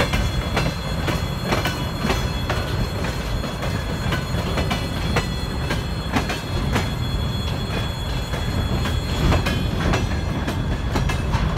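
Freight train of container flatcars rolling past close by: a steady rumble of steel wheels on the rails, with irregular clacks as the wheels cross rail joints and a thin high wheel squeal.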